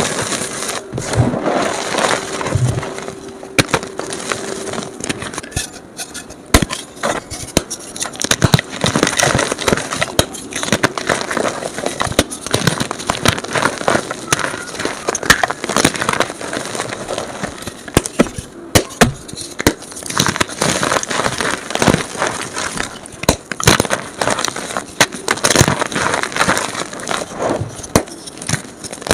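Gym chalk being crushed and crumbled, a dense run of crunching and crackling snaps, sped up. A faint steady hum lies under the first few seconds.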